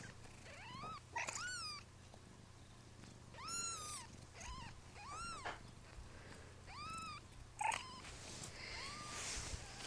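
Young kittens mewing: a string of about eight short, high-pitched mews, each arching up and then down in pitch, some faint.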